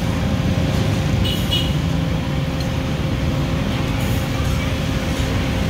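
Steady low rumble of street traffic with a constant hum.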